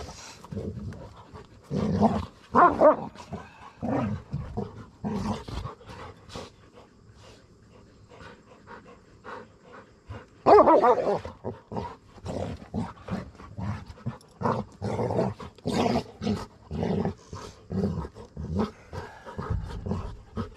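A dog barking repeatedly, loudest about two seconds in and again about ten seconds in.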